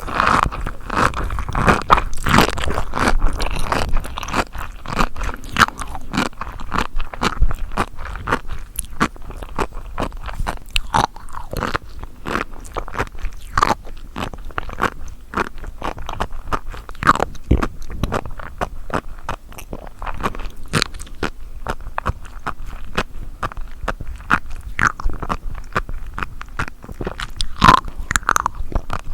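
Close-miked chewing and biting of seafood: a dense, steady run of wet crunches and small pops.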